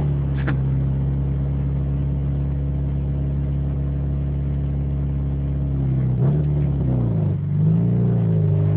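Honda B16 DOHC four-cylinder engine running at a steady speed, then its pitch falls and rises a few times from about six seconds in; the engine has an exhaust leak at the front.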